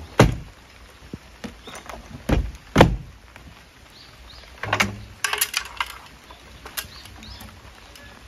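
Wooden rear door of a DIY kei-truck camper shell being handled and shut: a sharp knock about a quarter second in, then two heavy thuds a half second apart a little after two seconds. Halfway through comes a quick run of clicks and rattles of hardware at the back of the truck, then one last click.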